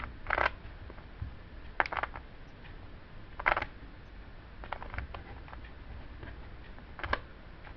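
Plastic 3x3 Rubik's cube being turned by hand: a handful of short clicks and rattles as its layers are twisted, spaced irregularly about a second or more apart, over faint room hiss.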